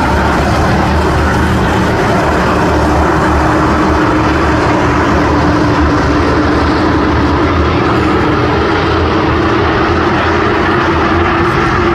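Engines of a pack of race cars running laps on an oval track: a loud, continuous drone whose pitch drifts slowly up and down as the field goes round.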